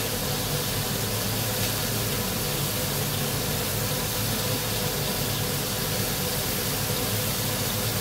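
Two 8-ounce steaks searing in a smoking-hot frying pan with a little oil and garlic cloves on full heat, giving a loud, steady sizzle.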